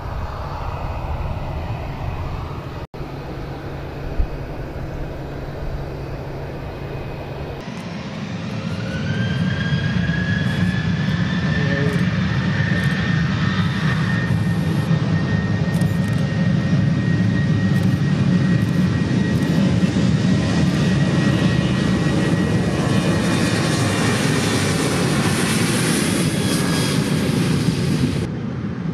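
Boeing 737-800's CFM56-7B turbofan engines running at taxi power: a steady jet rumble with a high whine. About a third of the way in the sound jumps louder and the whine rises, then holds steady.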